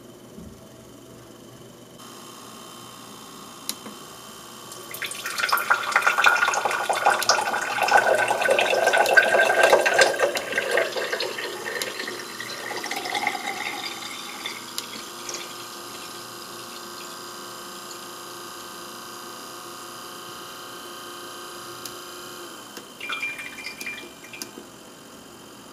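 Water from a 3D-printed Archimedes screw pump pouring in a stream into a glass, splashing loudly for several seconds and then growing quieter as the glass fills, over the faint steady hum of the small motor turning the screw. Near the end the hum stops and a few drips fall.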